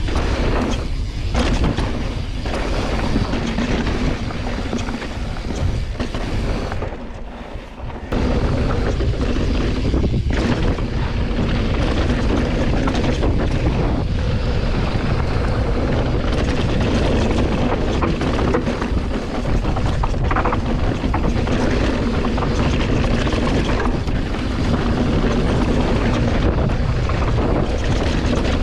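Wind buffeting the camera microphone and the Specialized Turbo Levo electric mountain bike's tyres rumbling over loose, rocky dirt as it is ridden, a steady noise that drops off briefly about seven seconds in.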